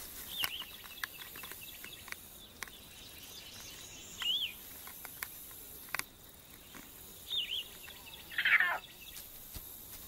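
Light clicks and scratches as a raccoon paws and noses at a box turtle's closed shell, over birds calling: short chirps a few seconds apart, and a louder call sweeping down in pitch near the end.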